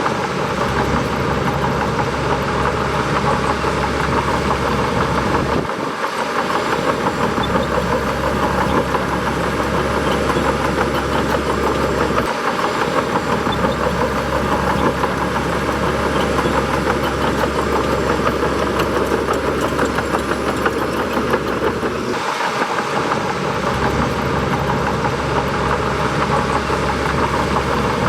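Bulldozer's diesel engine running steadily, its low rumble dropping out briefly three times.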